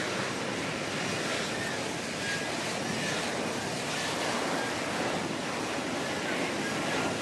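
Steady jet roar of an F-35B Lightning II's F135 engine and lift fan as the jet hovers in short-take-off-and-vertical-landing mode, before a vertical landing.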